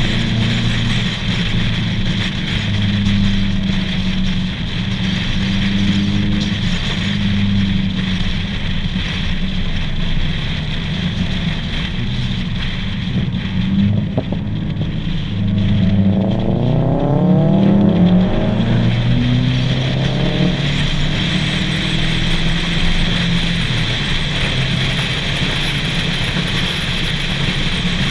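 Subaru cars driving at speed, engines running steadily under wind and road noise. About 16 seconds in, an engine revs up, its pitch climbing for a few seconds before settling back to a steady drone.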